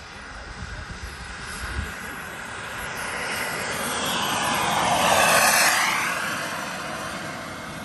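Radio-controlled model aircraft making a fast low pass: its engine noise swells to a peak about five seconds in and then fades as it goes by.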